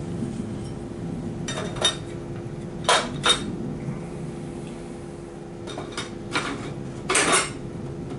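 Small metal parts and hardware clinking and clattering as they are picked up and handled. The clinks come in small clusters, about two and three seconds in and again around six and seven seconds, with the last cluster the loudest.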